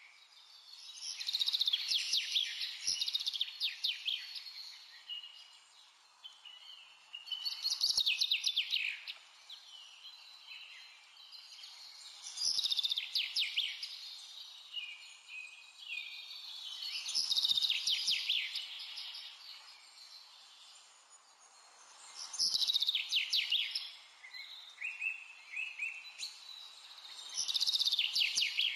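A songbird singing. A loud phrase of rapid, high trilled notes comes about every five seconds, with fainter chirps in between.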